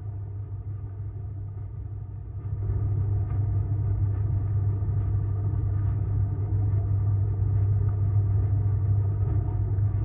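A steady low rumbling hum with no speech, getting louder about two and a half seconds in.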